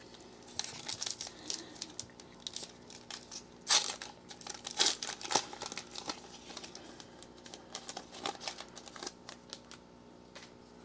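Foil wrapper of a trading-card pack crinkling and tearing as it is opened by hand: a run of crackling rustles, with the sharpest tears about four and five seconds in.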